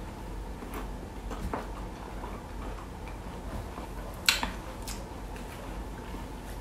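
A person chewing boiled bamboo shoot close to the microphone: soft, scattered mouth clicks and crunches, with one sharper click about four seconds in.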